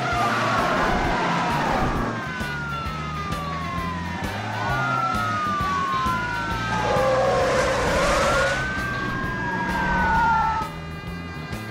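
Several police car sirens wailing at once, their rising and falling pitches overlapping, over the running engines of the pursuing vehicles.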